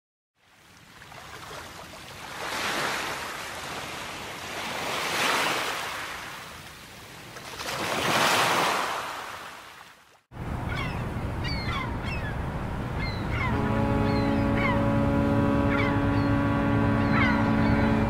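Sea waves surging onto a rocky shore in three long swells. After a cut, waves and wind continue with short falling bird calls, and about two-thirds of the way in a low, steady horn note sounds and holds.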